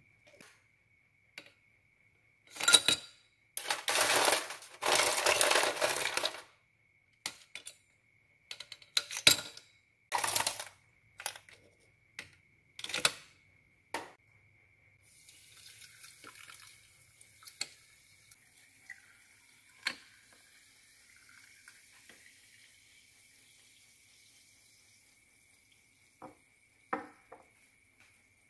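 Ice cubes dropping into a tall drinking glass: a dense clattering rattle, then single clinks and knocks. After that comes a soft fizzing hiss of carbonated water over the ice that slowly fades, with an odd crack of ice. A faint steady high whine runs underneath.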